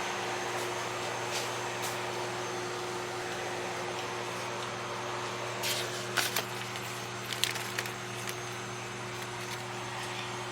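Steady low mechanical hum of a store's background machinery, with a few faint clicks and rustles about six seconds in and again a little later.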